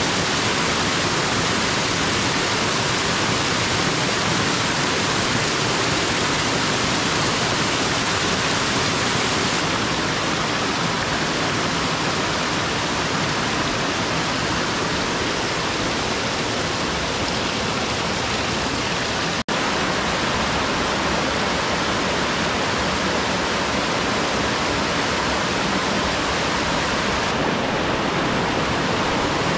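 Small forest stream tumbling over rocks into a little waterfall: a steady rush of water, cutting out for an instant about two-thirds of the way through.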